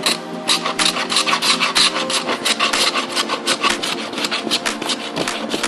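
Metal hand plane shaving a white oak board in quick short strokes, several a second, each pass a rough rasping scrape of the blade through the wood.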